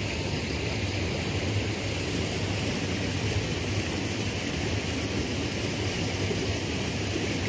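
River water flowing: a steady rushing noise that holds an even level throughout.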